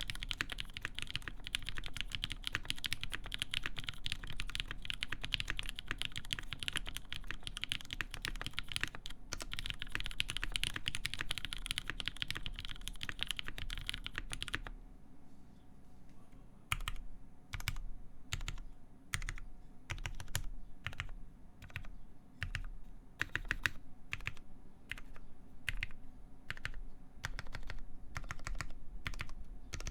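Typing on a MIRA SE mechanical keyboard with lubed Cherry MX Black linear switches in a full aluminum plate, under GMK keycaps. Fast, continuous keystrokes for about the first half, then slower, separate key presses with short pauses between them.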